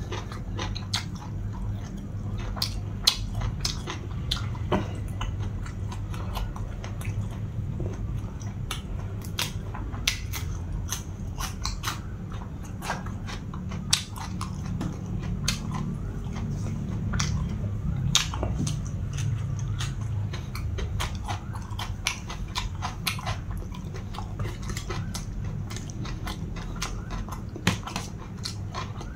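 Close-up eating sounds of a person chewing mouthfuls of pounded long-bean salad and blanched beef kidney, with many short clicks throughout over a steady low hum.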